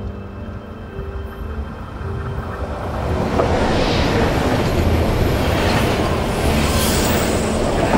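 Passenger train passing at speed. Its noise of wheels and rushing air swells over the first three seconds or so, then stays loud.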